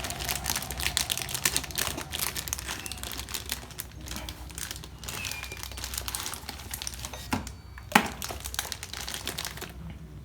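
A doorbell's box and packaging being opened by hand: irregular crinkling and rustling, with one sharp snap about eight seconds in.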